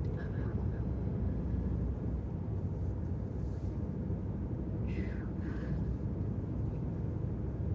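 Steady road and engine noise heard from inside a car cabin at highway speed, with a faint brief sound about five seconds in.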